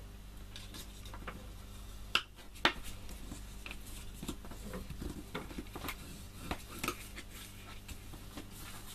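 Cardstock being creased along its score lines with a plastic bone folder: light scattered taps, clicks and rubbing of the tool and hands on the card and table, with two sharper clicks a little over two seconds in.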